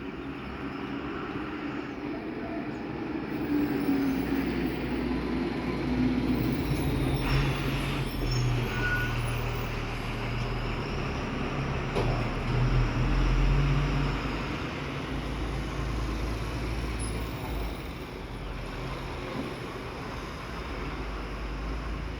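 Road traffic: a heavy vehicle's engine running with a low, steady hum that grows louder about four seconds in and eases off after about fourteen seconds.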